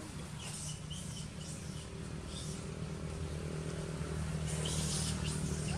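A steady low engine hum, with a few short high chirps over it near the start and again near the end.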